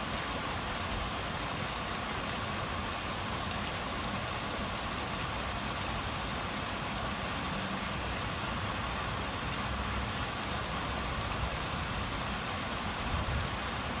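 Pond paddlewheel aerator running steadily: the continuous churn and splash of water thrown up by its paddles, with the drone of its motor underneath.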